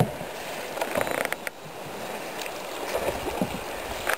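Kayaks being paddled on a fast-flowing river: steady rushing of water around the hulls and paddles, with a few short knocks and clicks about a second in.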